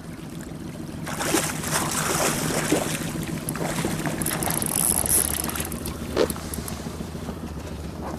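Water splashing beside an inflatable boat as a hooked lenok thrashes at the surface on the line, loudest between about one and five seconds in, over steady wind and river noise.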